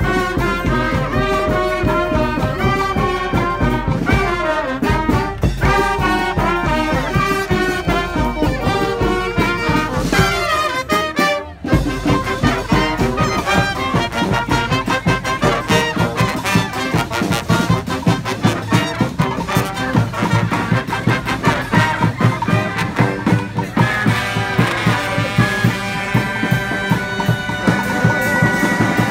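Street marching band playing a brass-led tune, horns over a steady beat, with a short break about eleven seconds in before the band comes back in together.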